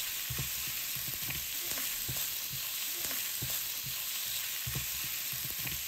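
Pig kidney slices, white onion and green onion sizzling in a nonstick frying pan while a spatula stirs them, with irregular light scrapes and knocks against the pan. This is the last quick stir of the stir-fry, the kidneys and seasonings already cooked.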